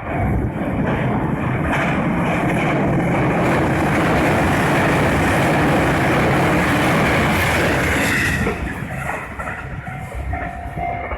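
Electric train passing over a level crossing, its wheels clattering loudly on the rails, dying away after about eight seconds. Near the end a level-crossing alarm bell rings in a steady repeating tone.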